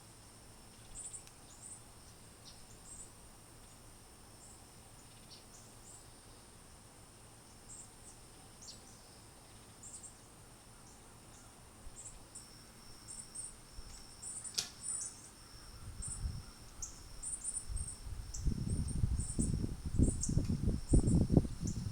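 Garden ambience: a faint, steady high insect drone with many short, thin, high-pitched chirps scattered throughout, and a single sharp click about two-thirds of the way through. From about three-quarters of the way in, loud, irregular low rumbling buffets the microphone and becomes the loudest sound.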